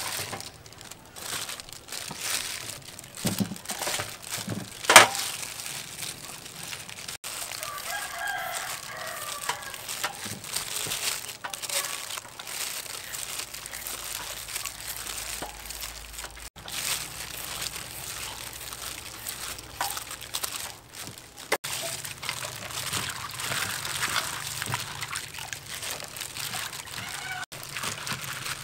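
A rooster crows from about eight seconds in, one wavering call lasting a few seconds. Around it come the rustles and snips of long beans and greens being handled and cut with scissors over a steel bowl, with one sharp click about five seconds in, the loudest sound.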